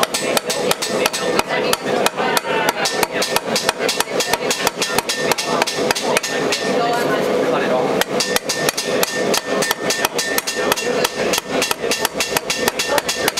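Hand hammer striking the edge of a copper disc held against an upright metal stake, forming its scalloped edge: quick, even blows about four a second, each with a short metallic ring. The blows thin out for a moment midway, then pick up again.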